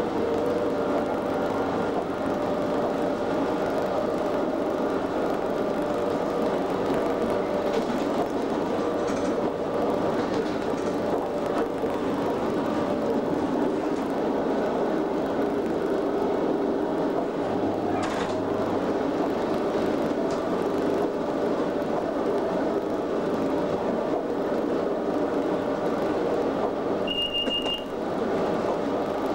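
Cab interior of a Class 87 25 kV AC electric locomotive running at speed: a steady hum from the locomotive over the continuous rumble of wheels on rail, with a few sharp clicks. A brief high-pitched tone sounds near the end.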